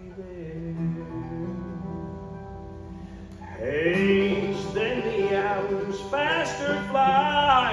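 A band with string instruments plays a slow hymn. For the first half there are quieter held chords, then voices singing in harmony come back in about halfway through.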